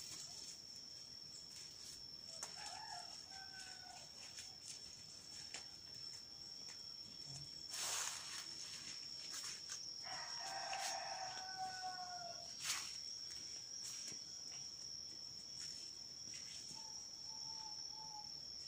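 A rooster crowing twice, about 2.5 s and 10 s in, the second crow longer, with a shorter call near the end, over a steady high-pitched insect buzz. A few short thumps break in, the loudest about 8 s in.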